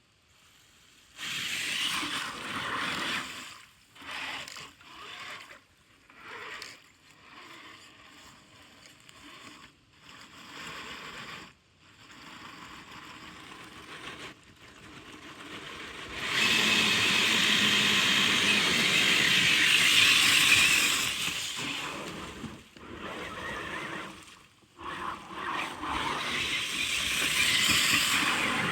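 Radio-controlled Traxxas off-road truck driving in stop-start bursts of throttle, its motor and tyres working over rough ground, with a longer, louder run a little past the middle.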